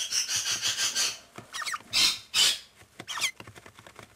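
Adelaide rosella nestlings calling: a rapid string of high pulsed notes for about the first second, then scattered short squeaks and chirps, with the towels they lie on rustling under a hand.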